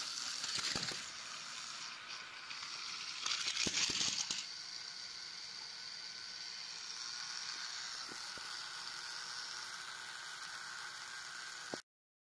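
Small electric motor of a battery-powered Plarail toy engine running with a steady whirring hiss as the derailed engine lies on its side. A few plastic knocks and rattles in the first four seconds; the sound cuts off suddenly near the end.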